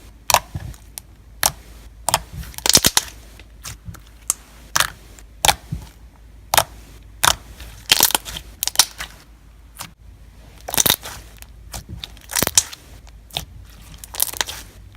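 Thick, glossy slime with foam beads on top being squeezed and worked by hand, giving irregular crunches and crackling pops a few times a second.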